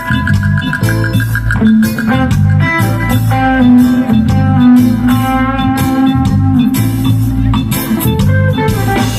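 Live reggae band playing an instrumental passage: a heavy bass line in an even repeating groove, guitar and keyboard notes and drums over it.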